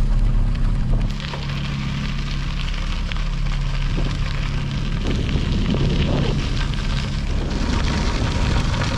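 Wind buffeting the microphone and a gravel bike's tyres rolling along the trail surface while riding: a steady noisy rumble that eases a little about a second in.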